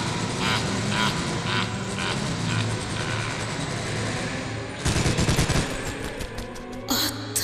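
Gunfire sound effects: spaced single shots over the first few seconds, then a rapid burst of automatic fire about five seconds in and a short burst near the end, over a low steady hum.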